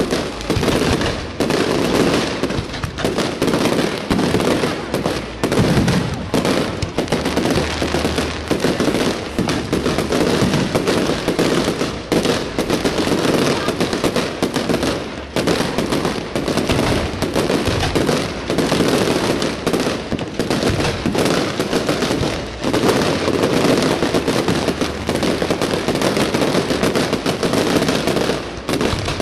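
Fireworks display at full intensity: many shells bursting in quick succession, a dense barrage of bangs and crackles with no pause.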